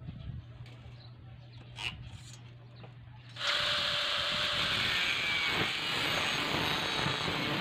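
Handheld angle grinder with a thin disc switched on about three and a half seconds in and running steadily and loudly. Before that, only a low hum and a faint tap.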